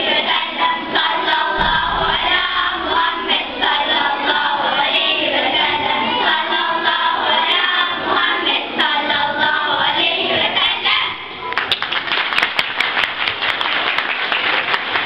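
A group of girls singing together as a choir; about eleven seconds in the singing stops and the audience breaks into applause.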